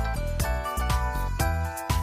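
Background music with a steady beat, bright bell-like melody notes and a strong bass.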